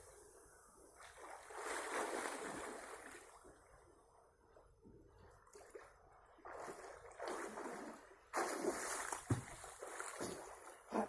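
Sea water splashing and sloshing in uneven surges as a person moves through it, with a few sharper splashes near the end.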